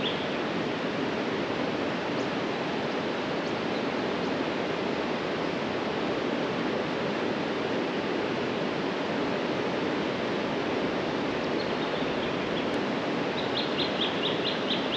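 Steady rush of a river running high after heavy rain. Near the end, a bird calls a quick series of short high notes.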